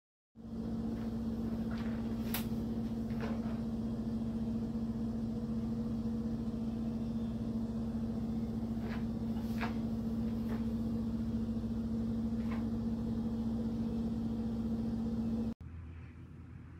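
A running kitchen appliance's steady electrical hum, with a few light clicks and taps scattered through it. The hum cuts off abruptly near the end, leaving a quieter low rumble.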